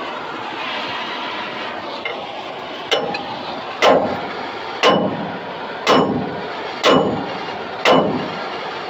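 Hammer blows on steel, about one a second: six sharp, ringing strikes starting about three seconds in, over a steady background rumble. It sounds like a seized trailer wheel hub and bearing being knocked loose on its spindle.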